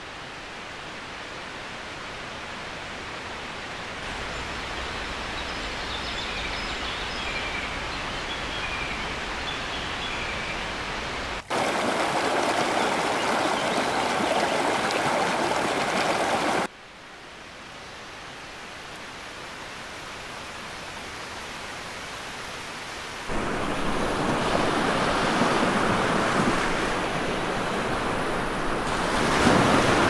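Stream water rushing over rocks, a steady hiss-like wash, with a few faint bird chirps in the first third. The water jumps abruptly louder and quieter several times: louder at about 11 s, quieter at about 17 s, louder again from about 23 s.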